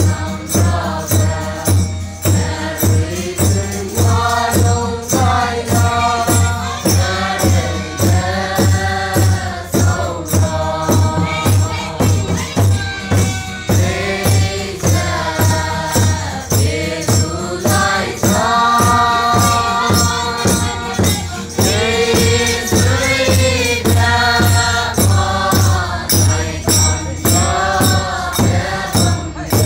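Large group singing together in unison to a steady beat.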